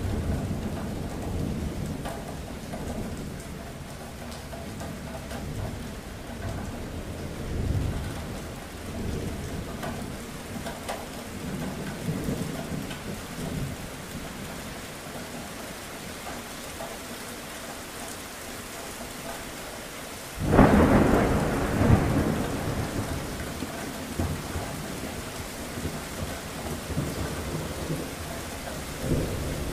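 Thunderstorm: steady rain with low rumbles of thunder, and about two-thirds of the way in a sudden loud thunderclap that rumbles away over several seconds.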